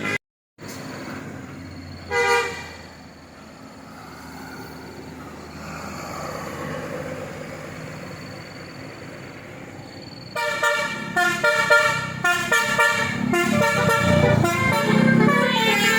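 A vehicle's basuri (telolet) multi-tone musical horn over passing traffic: one short toot about two seconds in, then from about ten seconds a fast run of changing horn notes.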